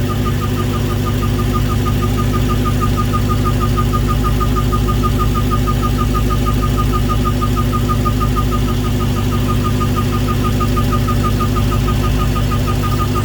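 Dodge Charger SRT Redeye's supercharged 6.2-litre HEMI V8 idling steadily, with a fast, regular chirp about six times a second riding over it, like a bird chirping under the hood. The cause is not found: the owner doubts it is the drive belt, and others have blamed the torque converter.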